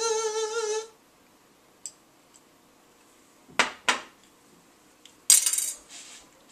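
A man's drawn-out shout of "flavor!" trails off about a second in. Then, as he tastes hot sauce from a plastic spoon, two sharp clicks come about half a second apart, and a short, loud, hissy burst follows near the end.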